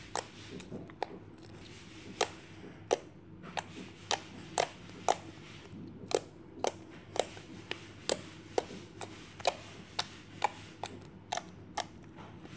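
Glossy slime, softened with a little water, squeezed and pressed by hand, giving a string of sharp wet clicks and pops at about one to two a second.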